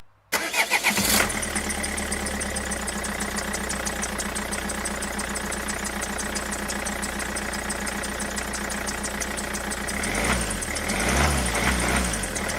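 Engine idling steadily, with a short wavering, slightly louder stretch near the end.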